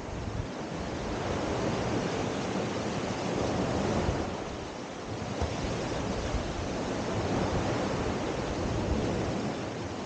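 Small Adriatic Sea waves breaking and washing up a sandy cove beach, swelling louder twice as waves run in and easing off in between.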